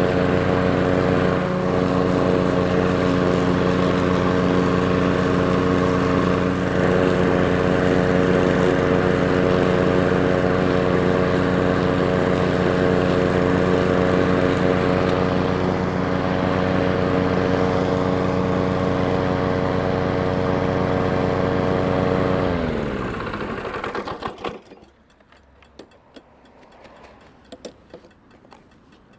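Powersmart DB8621SH lawn mower's 209cc four-stroke engine running steadily under mowing. About 22 seconds in it is shut off, its pitch falling as it winds down over about two seconds, followed by a few faint clicks.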